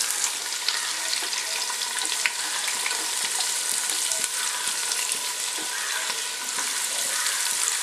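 Freshly added sliced onion sizzling in hot vegetable oil in a pot: a steady frying hiss with scattered crackles.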